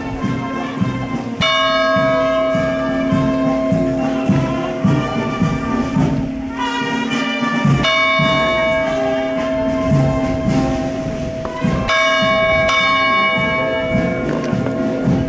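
Church bells ringing a festive peal, struck quickly over and over so that the tones run on without a break.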